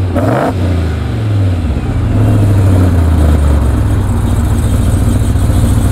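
Supercharged 6.2-litre V8 of a modified Ram TRX pickup heard at its exhaust tips. It settles from a brief rev into a steady idle in the first couple of seconds.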